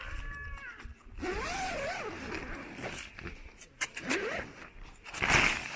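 Dome tent's door zipper being unzipped, a long raspy pull with the nylon fabric rustling, and a louder scrape near the end.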